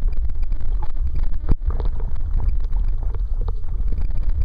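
Low, steady rumble of water and wind buffeting a small waterproof action camera's microphone, with one sharp click about one and a half seconds in.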